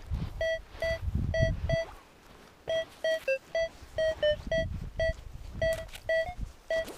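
AKA Berkut-5 metal detector giving short beeps, about two a second, mostly at one pitch with a few slightly lower ones, as the coil is swept back and forth over a target. This is a very clear, repeatable signal, which the detector reads as +40. Low rustling runs under the beeps in places.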